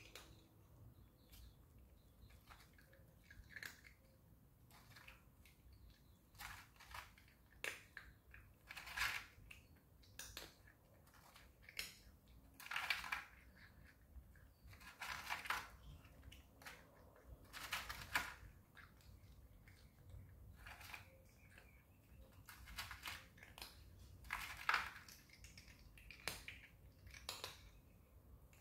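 A cat chewing and crunching its food, with irregular crunches a second or two apart, some in quick clusters.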